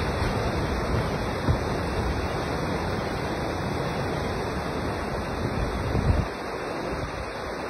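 Rushing floodwater of a swollen, muddy river, a steady roar, with low gusts of wind buffeting the microphone.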